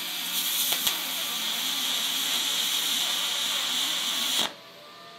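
MIG welding arc from an HTP Pro Pulse 220 MTS welder laying a short tack weld on aluminum: a steady hiss that cuts off suddenly about four and a half seconds in.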